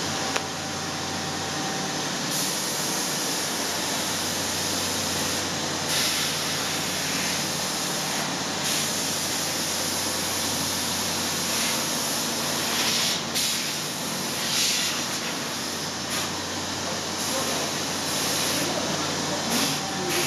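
Makino V33 vertical machining center running: a steady machine hum under a hiss that swells and eases several times.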